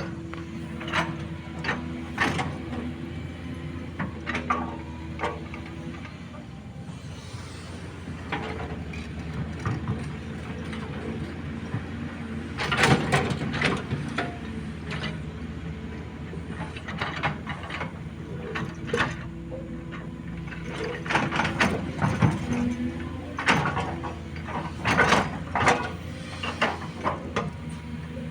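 SANY SY215C excavator's diesel engine running steadily under irregular clanks and knocks of large rocks against the steel bucket as it digs them out and breaks them, the clatter heaviest about thirteen seconds in and again in the last third.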